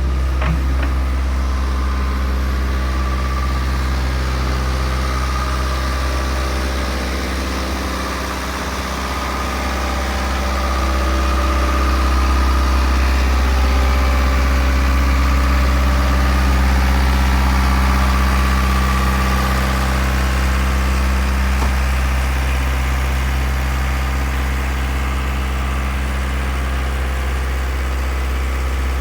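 Diesel engine of a JCB 8080 midi excavator running at a steady idle, getting a little louder about ten seconds in.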